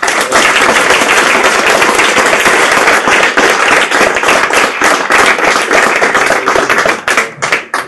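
Audience applauding loudly. It starts abruptly and thins out into a few last claps about seven seconds in.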